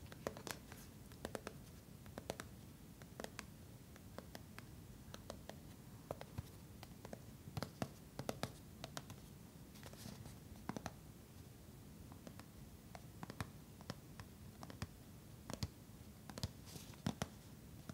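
Fingernails and fingertips tapping and scratching on a small cardboard Tampax Compak box as it is turned over in the hands: scattered light clicks and scrapes, several a second at times, with short pauses between.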